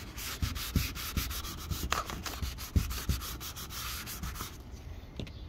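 150-grit sandpaper rubbed by hand in quick back-and-forth strokes, several a second, over a PVC vinyl shed roof, stopping about four and a half seconds in. This is roughing up the vinyl so the primer and cement will grip.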